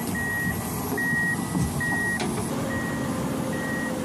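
Reversing alarm on a piece of heavy earthmoving equipment beeping steadily, about one high beep a second, over the low rumble of its running engine; a single sharp click sounds about two seconds in.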